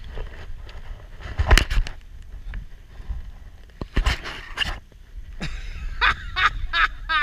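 Wind buffeting the handlebar camera's microphone in a low rumble, with a couple of sharp knocks. In the last couple of seconds come several short, high calls in quick succession.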